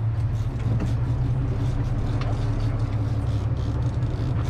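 Fishing boat's engine running steadily under way, a continuous low drone.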